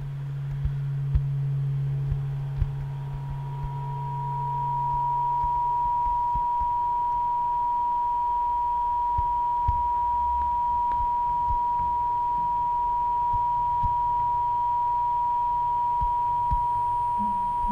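Electronic sine tones: a low steady tone that fades out about six seconds in, overlapped by a pure high tone near 1 kHz that enters about three seconds in and holds steady. Faint soft low thuds are scattered underneath.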